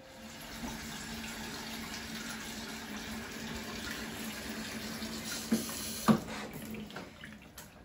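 Kitchen sink tap running, its stream pouring into a plastic bowl of spring onions, with a low steady hum underneath. Two knocks come a little after five and six seconds in, the second one louder, and the water stops about a second before the end.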